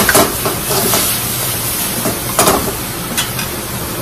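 String beans sizzling in a hot wok over a gas flame as the sauce cooks down, with a few scrapes and clanks of a metal spatula against the wok as they are tossed; the loudest clanks come near the start and again about two and a half seconds in.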